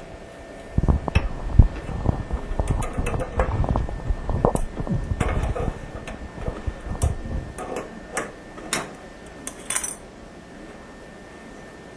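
Metal clinks and knocks from hand tools at work, a dense run of knocks followed by a few sharp separate clicks that stop about ten seconds in: a toilet's water supply line being disconnected.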